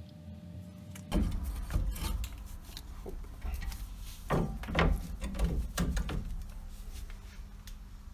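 Rear disc brake caliper being worked on by hand: metal parts knocked and rubbed against each other, a run of clunks and scraping starting about a second in and dying down after about six seconds.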